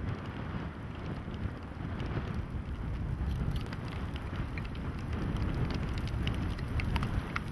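Wind buffeting the microphone as a steady low rumble, with scattered light ticks over it.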